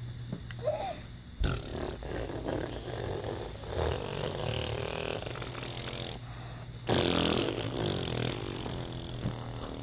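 A person making long, rasping fake fart noises: one drawn-out stretch starting about a second and a half in, then after a brief break a louder one from about seven seconds.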